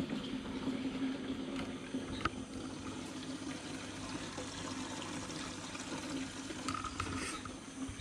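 Water trickling steadily in a planted aquarium, over a constant low hum.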